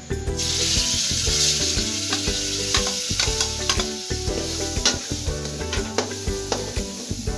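Semolina and dry fruits (coconut, almonds, raisins) frying in hot oil: a sizzling hiss that comes in sharply about half a second in, with the clicks and scrapes of a spatula stirring against the pan.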